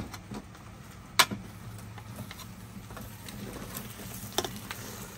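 Metal ladle and wooden spoon stirring thick semolina halwa in a large metal pot, with scattered clinks and knocks against the pot. The sharpest knock comes about a second in, and another near the end.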